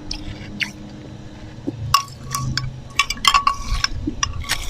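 Ice cubes clinking against a cup: a few soft clicks at first, then from about two seconds in a quick run of sharp, ringing clinks.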